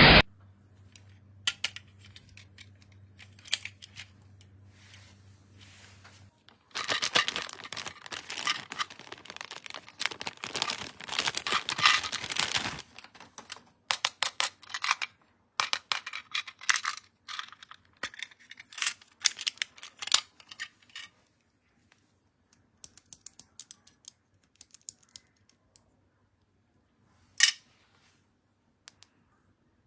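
Plastic toy packaging being handled and opened: a few seconds of crinkling and tearing, then scattered clicks and taps of small plastic pieces that thin out, with one sharper click near the end.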